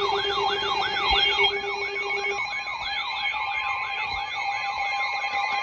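Electronic siren in a fast yelp, its pitch sweeping up and down about three times a second. A steady low tone sounds under it and stops about two seconds in.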